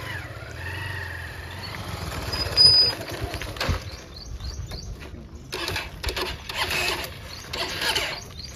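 Motorcycle being started: starter cranking and engine turning over with a steady low hum and a rising whine, and one louder burst about two and a half seconds in. Uneven bursts of engine noise follow, with birds chirping near the end.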